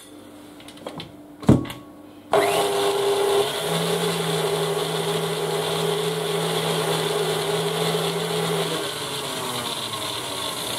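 A thump about a second and a half in, then a KitchenAid Artisan tilt-head stand mixer starts suddenly and runs steadily, its wire whisk beating pistachio paste into whipped cream in the steel bowl.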